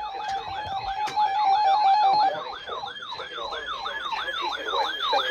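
Broadcast weather-warning alert tone: a falling sweep repeated about three times a second, with a steady tone beneath that stops a little over two seconds in.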